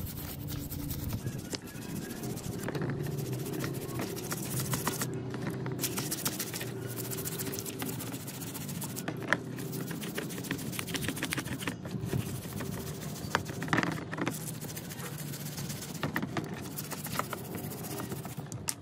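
Steel wire brush scrubbing a rusty steel hammer head in water, in quick repeated scraping strokes, with background music underneath.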